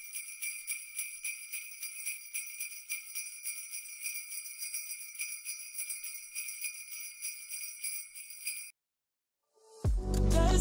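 Sleigh bells shaken continuously, a bright jingling that cuts off suddenly about a second and a half before the end. After a moment of silence, music with a strong bass starts.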